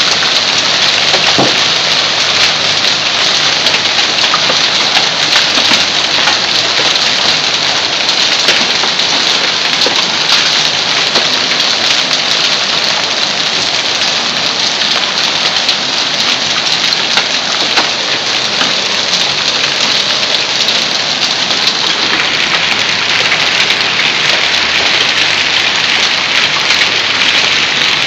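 Hailstones mixed with rain pelting a lawn and concrete walk: a loud, steady downpour of dense pattering.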